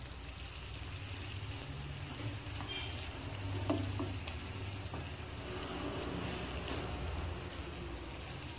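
Hot caramel sizzling in a nonstick pan as a wooden spatula turns fried bread balls through it, with a few faint knocks of the spatula against the pan midway.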